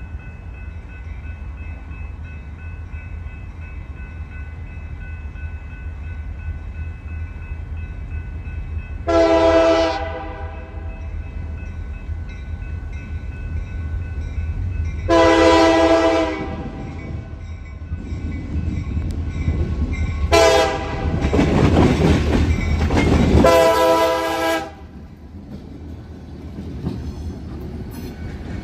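Freight train's diesel locomotives approaching and passing with a steady engine rumble while the horn sounds the grade-crossing signal: two long blasts, a short one, then a final long one. The horn is a chord of several notes. The engine rumble swells during the last blast as the locomotives come alongside.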